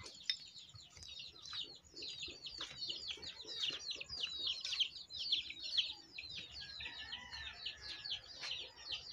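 Birds chirping: a dense, continuous run of quick, high chirps, each falling in pitch, several a second.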